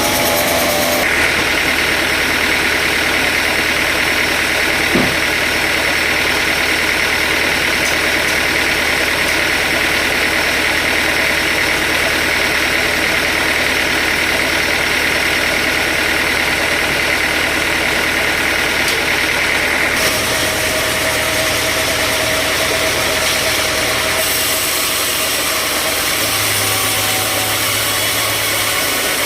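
Sawmill machinery running steadily, an engine-driven saw and its motor. The higher hissing part drops away about twenty seconds in, while the engine keeps running.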